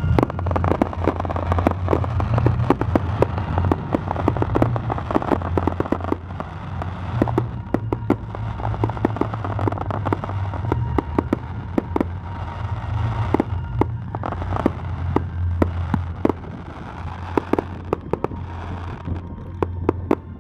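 Fireworks display: a rapid run of bangs and crackling. The bursts are densest in the first six seconds and more spaced out after that.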